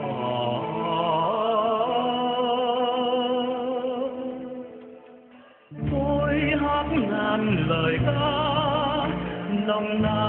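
Sung music with accompaniment: one song fades out about five seconds in, and a new song starts abruptly just before the six-second mark, again with a singer's wavering voice over instruments.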